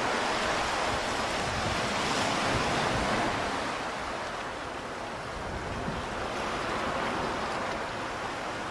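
Ocean water washing and sloshing in a steady rush that swells and eases over a few seconds.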